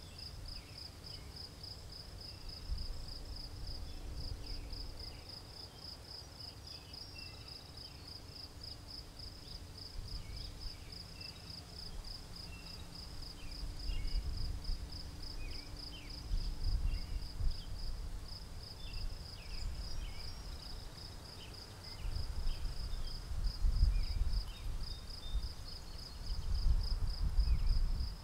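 Crickets chirping in a fast, even, unbroken pulse, with short, high bird chirps scattered over it. A low rumble comes and goes underneath and grows stronger in the second half.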